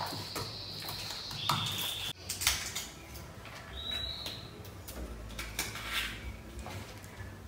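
Slime being mixed and handled, with scattered sticky clicks and pops, and a few short high whistling tones.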